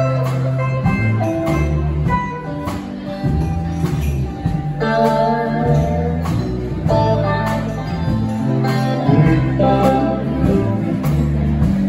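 Live rock band playing an instrumental passage: electric guitar and acoustic guitar over electric bass and a drum kit keeping a steady beat.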